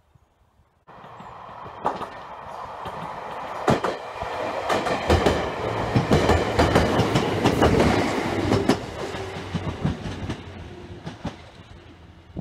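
Resistor-controlled Chichibu Railway electric train passing close by. Its wheels clack over the rail joints as it comes up loud, then the sound fades as it draws away.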